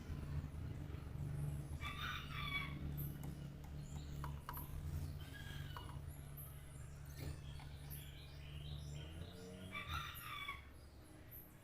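A chicken calling twice, each call under a second, with short high bird chirps in between. Underneath runs a low steady hum that fades out about nine seconds in.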